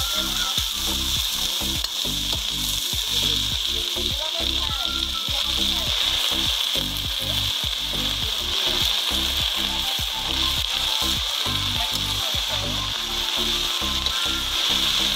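Leafy greens sizzling in hot oil in an aluminium kadai as they are stirred with a steel ladle: a steady frying hiss. Background music with a steady low pulse plays underneath.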